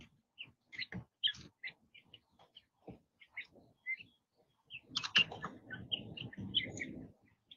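Young quail chirping: short, high peeps scattered throughout. From about five to seven seconds in there is a louder stretch of rustling and scuffling as the birds jostle close by.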